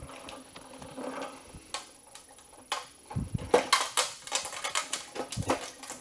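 Steel machining chips clicking and clinking as they are picked up with a handheld magnetic sweeper. The clicks are sparse at first and come thicker and louder from about halfway through.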